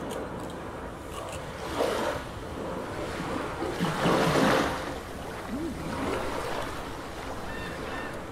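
Ocean waves washing in slow swells, a sea sound effect in the performance soundtrack, loudest about four seconds in, with a couple of low sliding tones near the middle.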